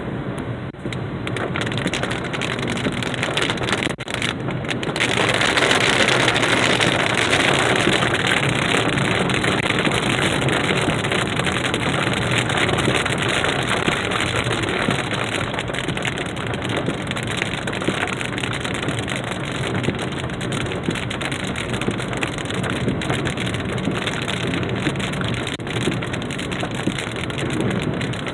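Heavy rain pouring steadily from a thunderstorm, turning heavier about five seconds in and keeping up a dense hiss.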